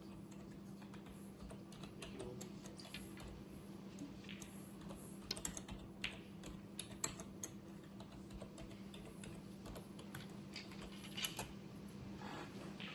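Computer keyboard being typed on in irregular bursts of light clicks, over a low steady hum.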